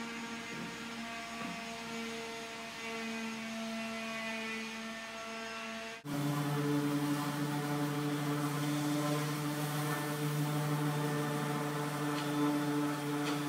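Steady electrical or machine hum made of several held tones. About six seconds in it breaks off abruptly and comes back lower-pitched and louder.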